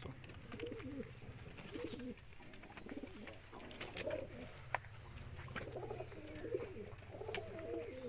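Domestic pigeons cooing repeatedly in their loft, a low call every second or so, with a few sharp clicks in between.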